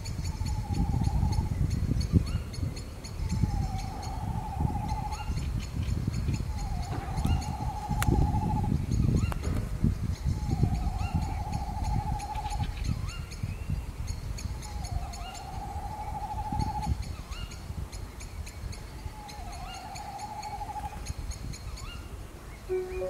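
Tawny owl giving six long wavering hoots, each about a second long and a few seconds apart. Underneath are a steady low rumble and fast, high-pitched chirping.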